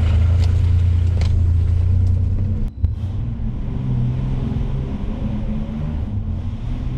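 Chevrolet S-10 Blazer's engine running while driving, heard inside the cab with the doors removed. A strong low hum breaks off briefly about three seconds in, then the engine carries on at a lower, more uneven note.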